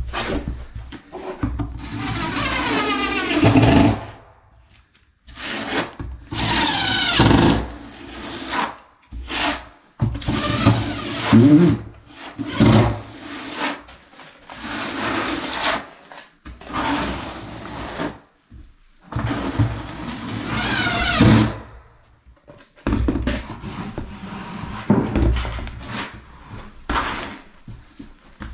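Notched trowel scraping thinset mortar across a concrete floor as it is spread and combed under the backer board. It comes as a series of scraping strokes, each a second or two long, with short pauses between.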